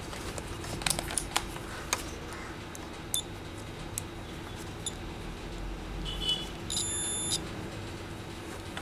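Digital multimeter on continuity mode beeping with its probes across an SMD inductor coil, a sign that the coil conducts and is good. A few light clicks come in the first seconds, then near the end a short chirp and a steady high beep of about half a second.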